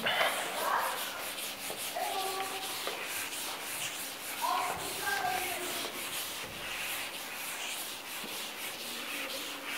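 Chalkboard eraser rubbing across a chalkboard in repeated short strokes, wiping off chalk writing.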